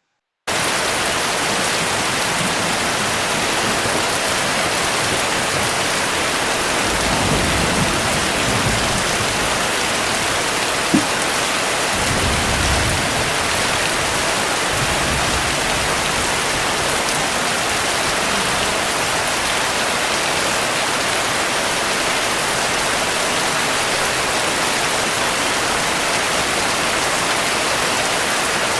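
Heavy rain falling steadily, with two low rumbles of distant thunder swelling up around the middle and a single short knock between them.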